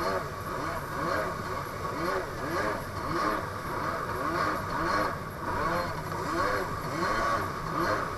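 Two-stroke jet ski engine running at speed, its pitch rising and falling about twice a second, with rushing water and wind.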